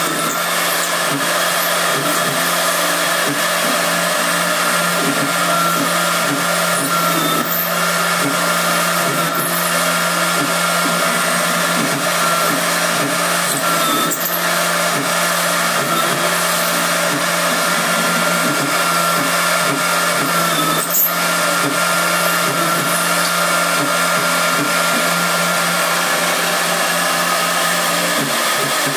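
High-speed CNC mill spindle running steadily with a high whine while its drill cuts holes in a metal plate, with a few brief sharp ticks, the loudest about two-thirds of the way through.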